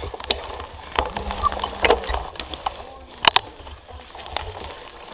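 Dry twigs and fallen branches snapping and cracking under mountain-bike tyres in brushwood, several sharp cracks with the loudest about three seconds in, over a steady low rumble.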